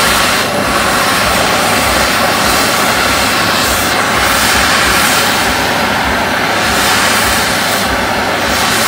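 Handheld MAP gas torch burning with a steady hiss of flame, heating the outer rim of a rubber suspension bush in a lower control arm to break its glued seal so it will press out.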